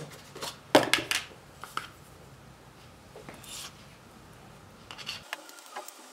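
Plastic butter tub being handled: a sharp snap and a few loud rustling, crackling strokes as the lid is worked off. Then quieter light clicks and scrapes of a metal spoon digging butter out of the tub near the end.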